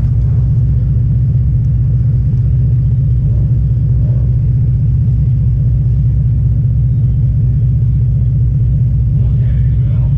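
Demolition derby car's engine running steadily, heard from inside the car as a loud, even low rumble with no crashes.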